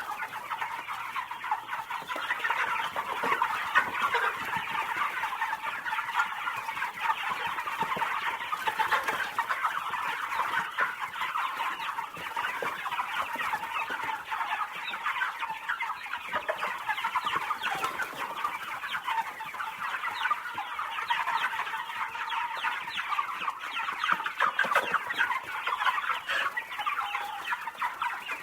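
A flock of farm chickens clucking and calling continuously, many birds at once, their calls overlapping into a dense chatter.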